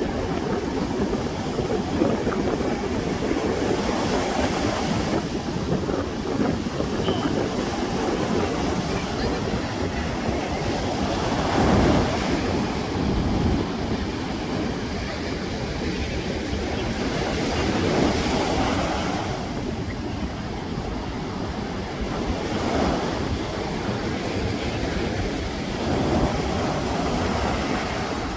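Ocean waves washing onto the shore: a continuous surf noise that swells as a wave breaks every several seconds, the biggest about halfway through.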